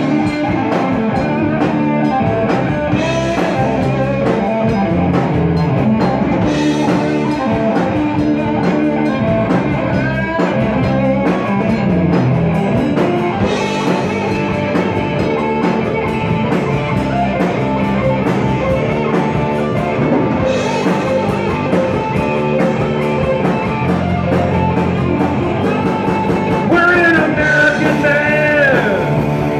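Live rock band playing: electric guitar, bass guitar and drum kit, steady and loud, with a man singing near the end.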